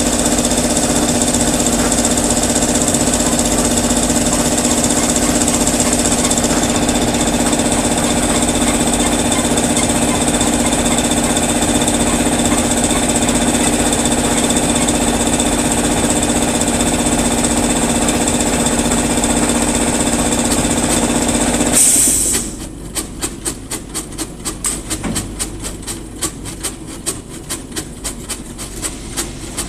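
Factory machinery running, including an automatic turntable stretch-wrapping machine wrapping a pallet: a loud, steady hum with a high hiss. About three-quarters of the way through, the hum cuts off abruptly, leaving a fast, regular clicking rattle.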